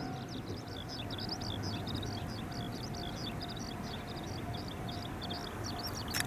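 Dense chorus of rapid, high-pitched animal chirps, many a second, over a low steady rumble; a sharp click just before the end.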